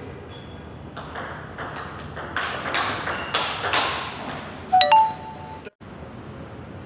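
Table tennis rally: a quick run of sharp ball strikes on bats and table, about three a second. The rally ends just before five seconds in with a loud, short ringing ping, the loudest sound.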